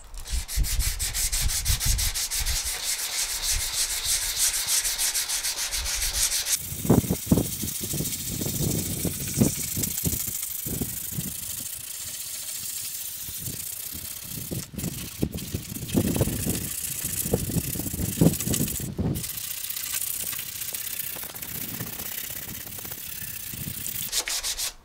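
150-grit sandpaper rubbed by hand over cured body filler on a car's rear wheel arch, smoothing the filler down. Fast, even back-and-forth strokes for the first few seconds, then slower, uneven strokes, stopping abruptly near the end.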